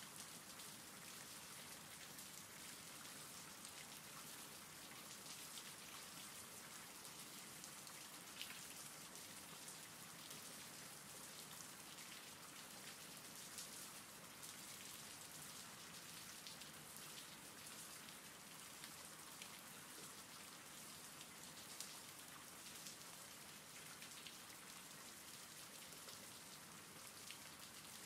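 Faint, steady rain, an even hiss with scattered drops tapping.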